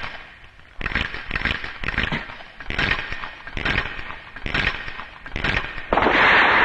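Animated whoosh sound effects of a gymnast's giant swings around a horizontal bar, about one rush per second. A louder, longer rush starts near the end as he lets go of the bar into the dismount.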